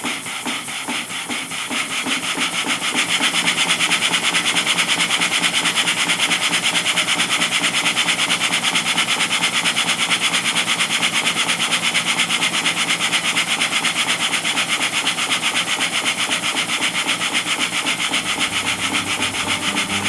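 Model steam engine with Walschaert slide-valve gear running on compressed air, its exhaust puffing in a rapid, even beat over a steady hiss. It picks up and gets louder about two seconds in.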